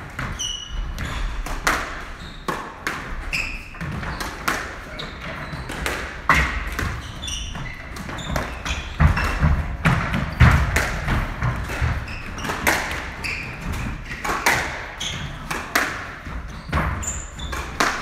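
A squash rally: the rubber ball smacks off rackets and thuds against the court walls again and again, with short squeaks of court shoes on the wooden floor in between.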